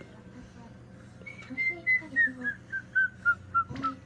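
A person whistling a run of short, clear notes that step down in pitch, about three or four a second, starting after about a second. There is a brief click near the end.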